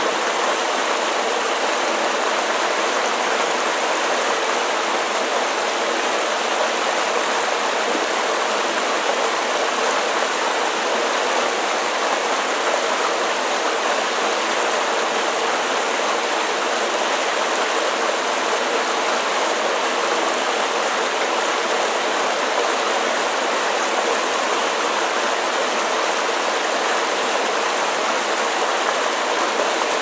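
Small waterfall of the Caribou River: water pouring over stone ledges into a pool, a steady, even rushing splash.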